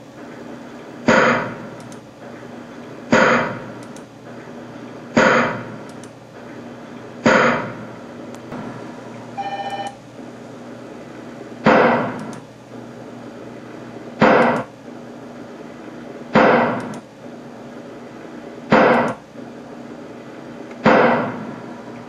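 A series of sharp bangs from hydroxy (HHO) gas made by electrolysis being ignited in plastic bottles, heard played back through computer speakers: four about two seconds apart, a short electronic beep about ten seconds in, then five more.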